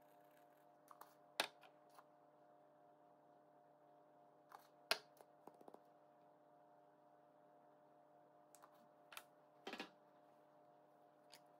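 A few sharp clicks and knocks from small spice jars being handled and shaken over a tray, against a steady faint hum.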